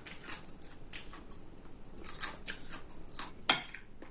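Close-miked crunchy chewing: irregular crisp crunches and crackles of eating, with a sharper click about three and a half seconds in.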